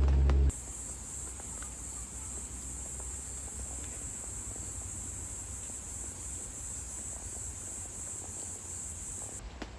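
Insects chirring steadily in a high, even buzz that stops shortly before the end. It is preceded by a loud low rumble that cuts off abruptly about half a second in.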